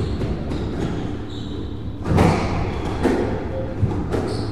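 Squash ball struck by racket and hitting the court walls: a serve and rally, heard as several sharp knocks with the loudest about two seconds in.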